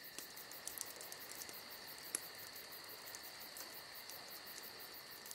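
Faint night ambience of crickets chirping steadily, with occasional sharp crackles from a burning wood campfire, one louder pop about two seconds in.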